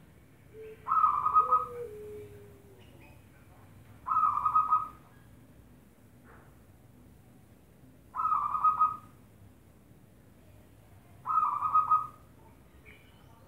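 Zebra dove (perkutut) singing its rhythmic, pulsed cooing phrase four times, one phrase every three to four seconds.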